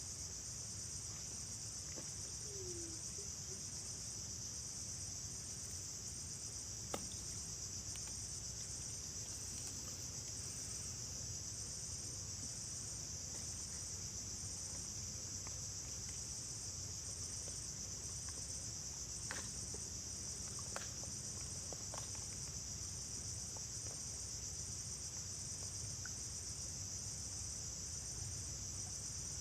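A steady, high-pitched insect chorus that holds without a break, with a few faint clicks.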